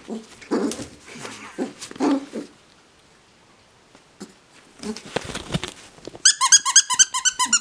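A puppy making short rough play growls, then from about six seconds in a squeaky toy squeaked rapidly over and over, several squeaks a second.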